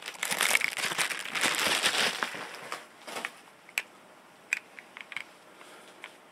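Packaging crinkling as it is handled, then a few sharp, light clicks of plastic coin capsules being handled on the cloth.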